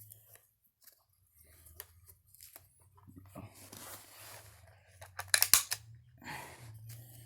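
Scissors snipping through cloth camo tape, a few short rasping cuts and a quick run of sharp snips about five seconds in.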